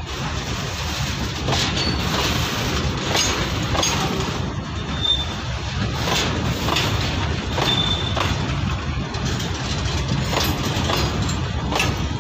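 Freight train of covered goods wagons rolling past close by: a steady low rumble, with wheels clicking over rail joints again and again and a few brief high squeaks from the wheels.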